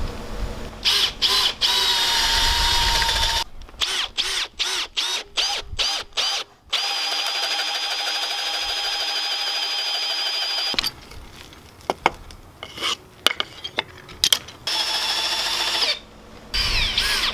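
Cordless drill turning a large auger bit, boring a tight-fitting trunnel hole through a clamped plywood block into an oak frame futtock. The motor whine comes in a run of short trigger pulses a few seconds in, then one long steady run in the middle, then stops and starts again.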